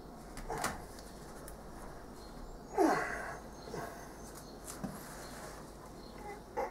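Wooden sand-casting flask handled by hand as the cope half is lifted off the rammed mould, with a few short squeaks that fall in pitch (the loudest about three seconds in) and faint knocks.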